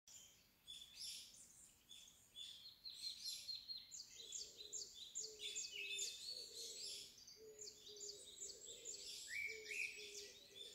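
Several birds chirping and twittering in quick, overlapping short notes. From about four seconds in, a lower short note repeats roughly twice a second beneath them.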